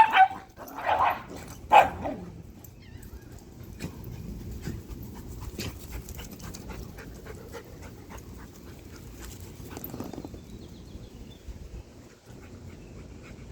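A dog gives three short barks in the first two seconds, then pants for the rest of the time.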